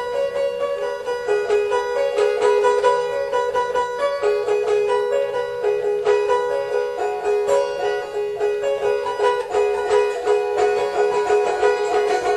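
Instrumental background music, a run of quick notes carrying a melody.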